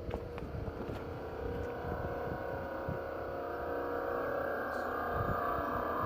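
A steady, unexplained droning sound heard from the sky, made of several held tones together over a low rumble, growing slowly louder. It is the kind of trumpet-like drone reported as a strange sky sound.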